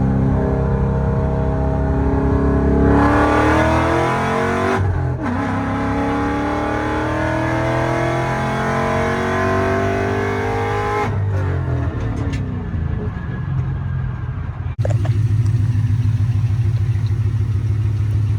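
2018 Ford Mustang GT's V8 engine running. Its note rises about three seconds in, then falls slowly over several seconds, and it settles to a steady idle near the end.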